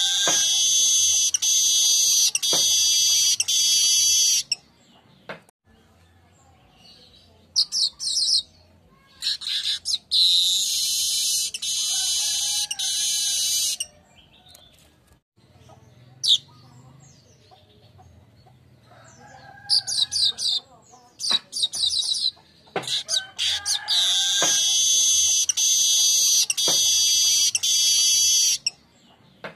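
Manyar weaver (Ploceus weaver) singing: three long, harsh, high buzzing songs of several seconds each, with short chattering phrases between them.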